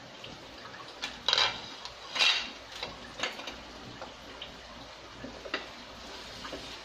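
A glass pot lid clattering twice, about a second apart, as it is set down on the counter, then a spatula scraping and tapping in a stainless steel pot while stirring ground pork.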